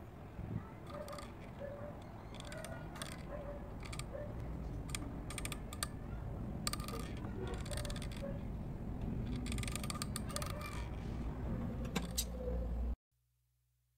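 Small bamboo-chopstick crank wheel and axle of a miniature water well being turned by hand, giving irregular light wooden clicks and rattles. It cuts off about a second before the end.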